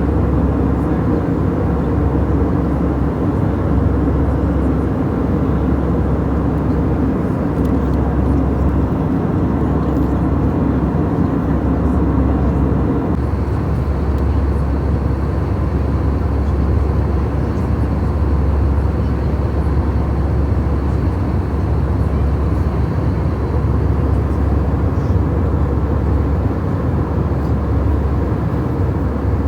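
Steady engine and air noise inside a passenger airliner's cabin, a constant low rumble with a hiss over it. About halfway through the lower middle of the sound thins a little and a faint high steady tone comes in.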